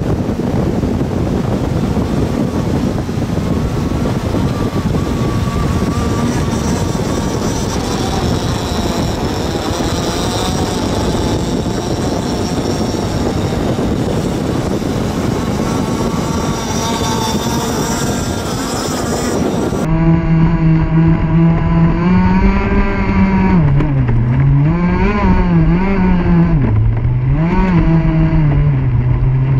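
For about the first twenty seconds, a loud steady rush with a faint engine whine wavering in it. Then comes a cut to the close, loud sound of a Pro Boat Rockstar 48-inch RC catamaran's two-stroke gas engine running at speed. Its pitch swings down and back up several times as the throttle is worked, then settles near the end.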